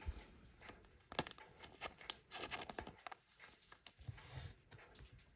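Trading cards being handled: scattered light clicks and brief rustling as the cards are shuffled through the stack and slid about.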